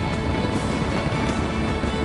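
Music playing, a dense, steady mix of sustained tones.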